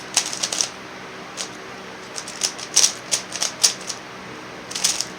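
Meilong 3x3 speed cube, not yet lubricated, being turned quickly during a solve: irregular runs of plastic clicks and clacks as the layers turn, loudest past the middle.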